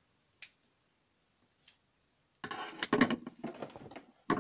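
A sharp click about half a second in, then, from about halfway through, rustling and handling of a sewn satin-like garment at a sewing machine, ending with another click.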